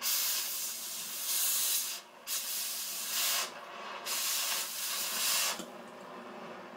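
Oxy-acetylene cutting torch: three loud bursts of hissing, each one to two seconds long, as the cutting-oxygen jet blasts through the metal. Between the bursts and after them, the preheat flame keeps up a softer steady hiss.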